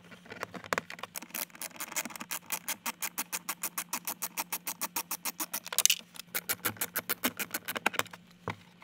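Hand ratchet with a T20 Torx bit clicking rapidly and evenly as it backs out the screws holding a dash midrange speaker, with one louder noise about six seconds in.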